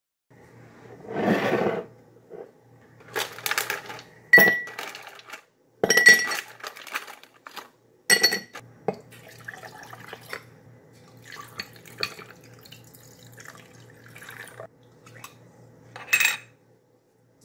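Ice cubes dropped into a tall drinking glass, landing with three clinks that each ring briefly, then quieter sounds of liquid being poured and handled. A noisy burst comes about a second in and a short sharp sound near the end.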